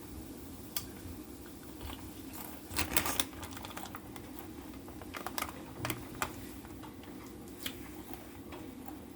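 Scattered light clicks and short crinkling rustles from handling food and its wrapping, with a busier cluster about three seconds in and another around five to six seconds in.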